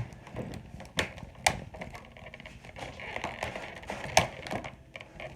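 Plastic and cardboard toy packaging being handled and pulled at, with scattered sharp clicks and light crackling as an action figure is worked loose from its box and fasteners.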